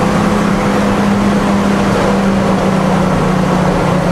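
Detroit Diesel 6-71 two-stroke diesel of a Seagrave fire engine, heard from inside the cab while driving. It runs at a steady cruise, its note sagging slightly lower toward the end.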